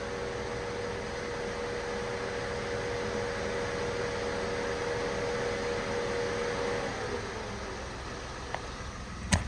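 Peugeot 107's electric radiator cooling fan running steadily over the idling engine with a rushing hiss and a light hum, then cutting out about seven seconds in, leaving a quieter idle. The fan kicking in and out shows the engine is up to temperature and the cooling is working. A single click near the end.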